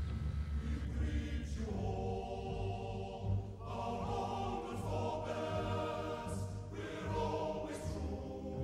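Choral music: voices holding sustained chords that change every two to three seconds over a steady low bass.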